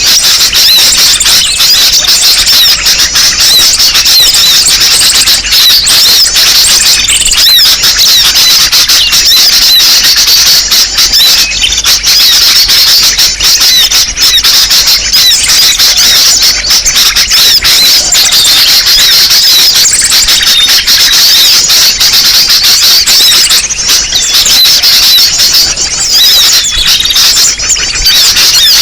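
Dense, noisy chorus of many small birds chirping and twittering over each other without a break: a bird-lure recording used to draw small birds in for trapping. It is loud and sounds heavily compressed.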